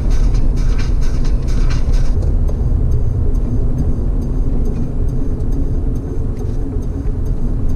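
Steady low road and engine drone inside a Nissan Skyline ER34 sedan cruising at highway speed. A quick, regular light ticking sits on top for about the first two seconds, then fades.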